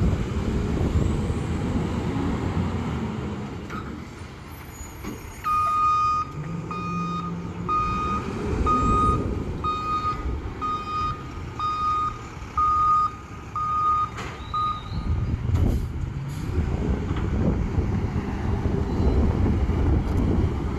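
Rear-loader garbage truck backing up: its reversing alarm beeps about once a second, some ten times, over the engine's low running. The engine grows louder after the beeping stops, with a few sharp clicks around the moment it ends.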